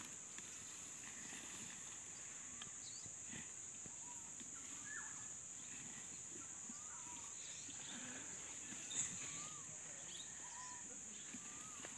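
Outdoor insect drone, a steady high buzz, with scattered short bird chirps over it and a brief louder knock about nine seconds in.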